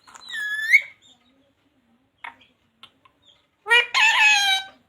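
A pet parrot calling: a short gliding call at the start, then a longer, falling, crow-like call near the end.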